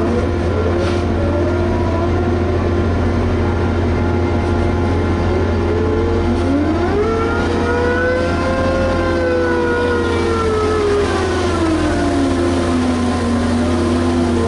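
Liebherr HS8200 dragline's diesel engine running steadily under a constant low hum. About halfway through it revs up over a couple of seconds, holds the higher pitch, then slowly drops back to its earlier speed.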